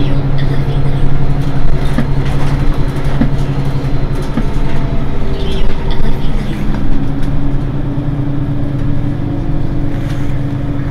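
Diesel engine of a Mercedes-Benz Citaro G C2 articulated city bus running with a steady low drone. The note changes briefly about halfway through, and a few light clicks sound in the first half.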